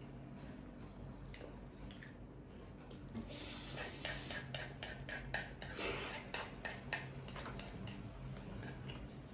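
Noodles slurped from chopsticks about three seconds in, followed by wet chewing and a run of sharp clicks of wooden chopsticks against a wooden bowl.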